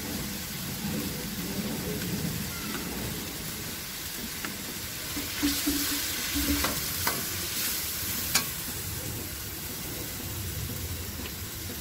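Cabbage, carrots and pork sizzling in a stainless steel wok as they are stir-fried with soy sauce. A metal ladle scrapes and clinks against the wok several times in the middle.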